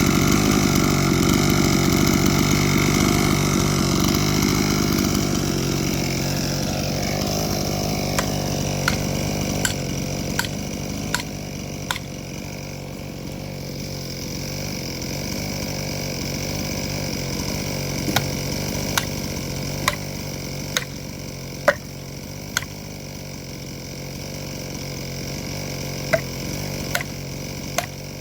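Skil chainsaw cutting into wood, then dropping back to run more quietly after about five seconds. Over the quieter running come sharp knocks about one a second in three groups.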